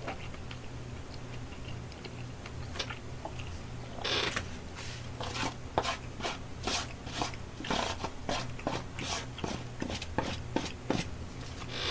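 A spoon scraping and knocking food out of a white foam takeout tray into a pan: a run of short scrapes and taps, about two a second, starting about four seconds in.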